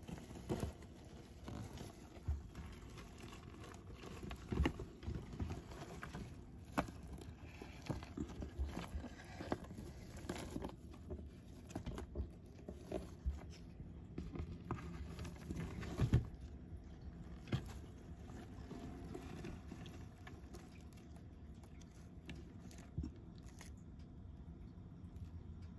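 Greek tortoise biting and tearing at a fresh komatsuna leaf held in the fingers: irregular small crunches and leaf crinkles, with a few sharper bites, the loudest about sixteen seconds in.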